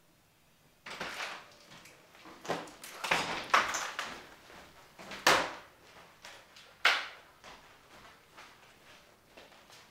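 A door opens about a second in, followed by footsteps across a hardwood floor and several sharp knocks and clatters, the loudest a little past the middle.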